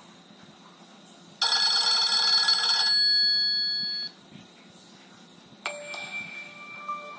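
Nokia N73 mobile phone playing a telephone-bell style ringtone: a loud, dense ring of about a second and a half that thins out and stops about four seconds in. Near the end a different ringtone of steady electronic tones begins.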